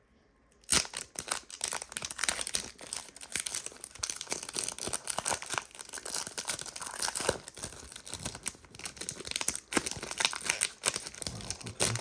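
Foil wrapper of a Panini Prizm basketball card pack being torn and crinkled open with some struggle: a dense run of rips and crackles starting about a second in.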